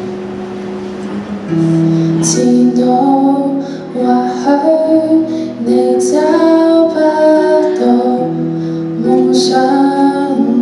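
A woman singing a Cantonese pop ballad to her own acoustic guitar accompaniment: the guitar plays alone for about the first two seconds, then her voice comes in with the opening verse.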